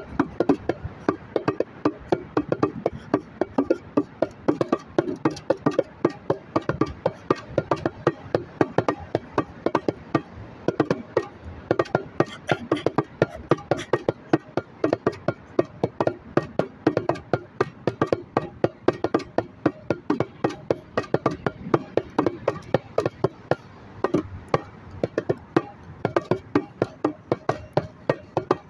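A percussion instrument played by hand in a steady stream of woody, pitched knocks, about three strikes a second.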